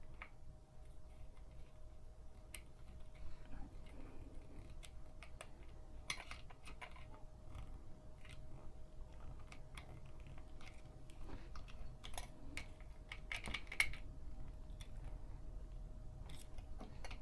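Scattered light clicks and taps of small sewing-machine parts being handled and fitted by hand, with small clusters about six seconds in and again near fourteen seconds. A faint steady hum runs underneath.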